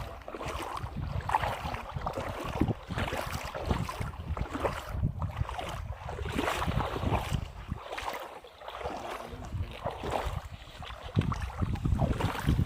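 Wind buffeting the microphone in irregular low gusts, over water sloshing and splashing.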